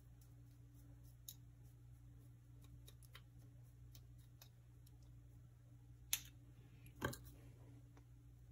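Metal spoons lightly clicking and clinking as crumb topping is spooned onto muffin batter in a metal muffin tin, with two sharper clinks about six and seven seconds in, over a low steady hum.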